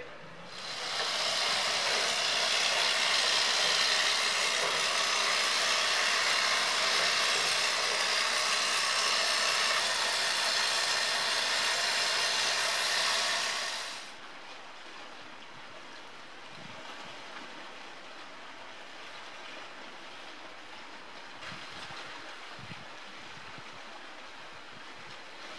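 A loud, steady rushing hiss starts about a second in and cuts off after some thirteen seconds. Then comes a faint outdoor background with a few soft low thumps.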